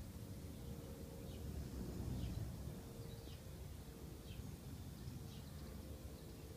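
Sleeping dog snoring softly, a low rough breathing rumble that swells about two seconds in. Short high falling chirps repeat about once a second over it.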